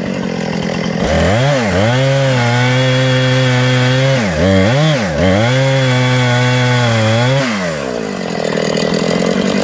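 Two-stroke chainsaw revving up to full throttle about a second in and held at high revs while cutting wood, its engine speed dipping sharply twice in the middle, then dropping back to idle near the end.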